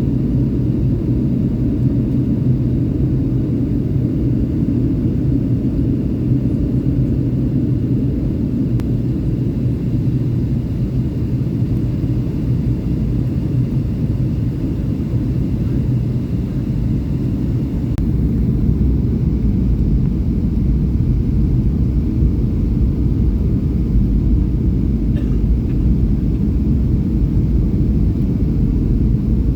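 Steady low rumble inside the cabin of a Boeing 757-200 in flight, from its Rolls-Royce RB211 engines and the airflow past the fuselage. The rumble grows a little louder and deeper about two-thirds of the way through.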